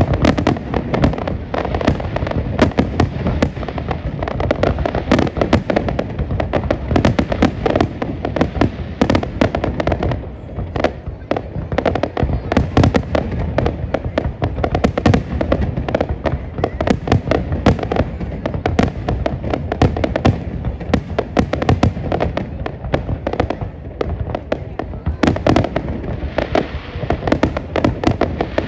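Fireworks display: a dense, unbroken barrage of bangs and crackling, easing slightly about three-quarters of the way through and then building again.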